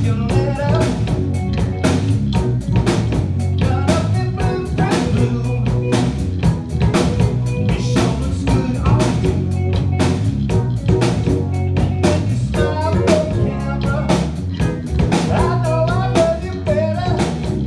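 A live yacht-rock band playing with a steady drum-kit beat, electric guitar and bass guitar. A woman sings into a microphone in several phrases, including about half a second in, around three seconds, around thirteen seconds and near the end.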